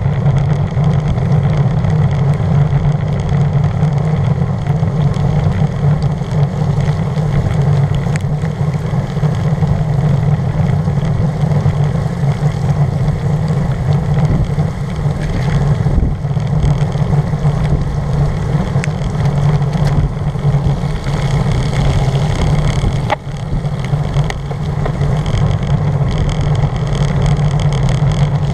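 Steady wind and road noise on a bicycle-mounted camera riding a rain-soaked road: a constant low rush with road-bike tyres running through surface water. A few light knocks from bumps come through.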